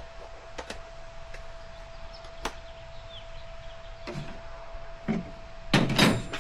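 Tire irons and rim savers clicking and knocking against a dirt bike's aluminum rim while the tire bead is worked onto it, with a louder clatter of knocks near the end. A faint steady tone runs underneath.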